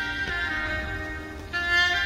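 Music: a slow melody of long held notes that step to a new pitch a few times, over a steady low rumble.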